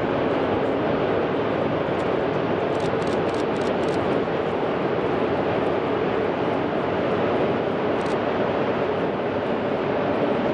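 Freight train of open coal wagons rolling past: a steady rumble of wheels on rails, with a few faint clicks about three seconds in and again near eight seconds.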